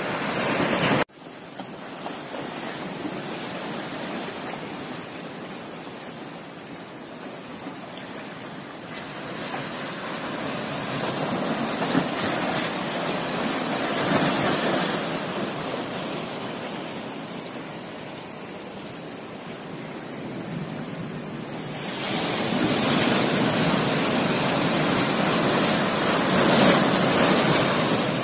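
Surf breaking on a sandy beach: a steady rushing wash of waves that swells and eases. The sound cuts off abruptly about a second in and resumes, and it is louder over the last several seconds.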